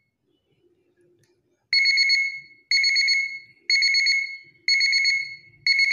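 An old alarm clock's buzzer, rewired as a water-tank-full alarm, gives five evenly spaced bursts of rapid "tik tik tik" beeping about one a second. The beeping starts about a second and a half in. It sounds because the two sensor wires are in water, the signal that the water has reached them.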